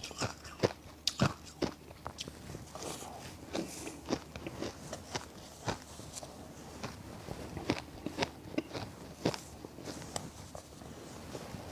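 A person biting and chewing ice: irregular sharp crunches and cracks, with quieter grinding between them.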